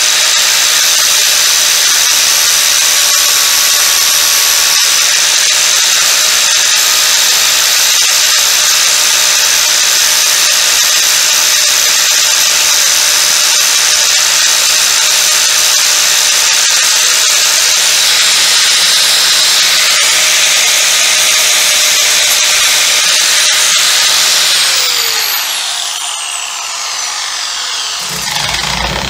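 A 4-inch angle grinder with a flap disc runs at full speed, grinding a coped profile into the end of a piece of painted trim. About 25 seconds in it is switched off and its whine falls as the disc spins down, with a short low bump near the end.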